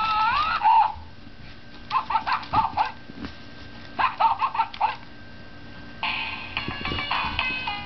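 Maltipoo puppy giving a brief rising whine, then two quick flurries of high, short yaps. About six seconds in, a simple electronic tune starts playing.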